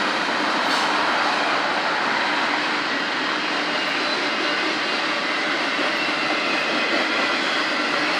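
Train rolling past with a steady noise of wheels on rail, holding even throughout with faint high tones from the wheels.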